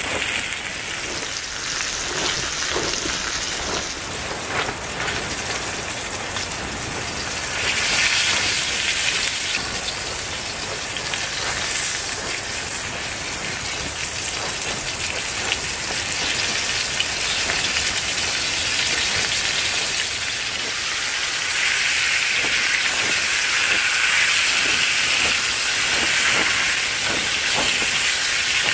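Bacon frying in a cast-iron skillet over a Solo Stove twig stove: a steady sizzle with fat spitting and crackling, swelling louder twice along the way.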